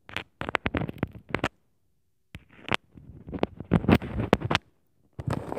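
Handling noise close to the microphone: clusters of sharp clicks and knocks mixed with rustling, in three bursts with short pauses about a second and a half in and again near the end.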